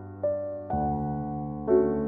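Slow background music on a piano-like keyboard, with new notes or chords struck three times and left to ring.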